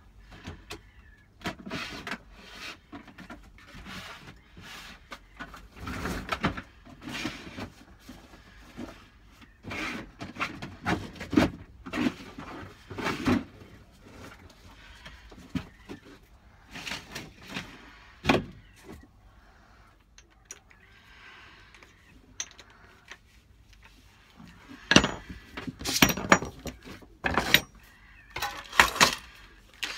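Irregular knocks, clicks and clatter of tools and metal parts being handled at a workbench. A run of sharper, louder clicks comes near the end, as an electric drill is picked up and handled.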